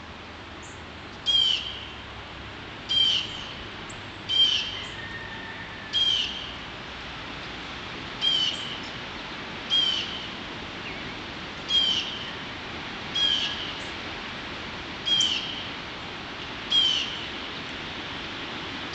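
A bird repeating a short, sharp, down-slurred call about every one and a half seconds, eleven or so times; the recordist would almost call them alarm calls. Behind it, a steady noise of high wind.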